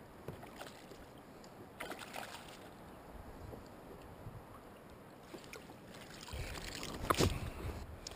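Light water splashing and handling noises as a hooked pollock is drawn alongside a kayak and lifted out of the sea, with the loudest burst about seven seconds in.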